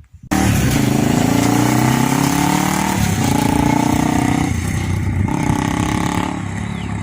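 Honda CB 300 single-cylinder motorcycle with an aftermarket Fortuna sport exhaust, loud and accelerating. The engine pitch climbs, drops at gear changes about three and about four and a half seconds in, and eases off near the end.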